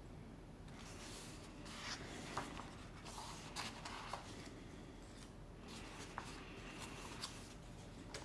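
Pages of a paperback book being turned by hand: faint, scattered paper rustles with a few light taps.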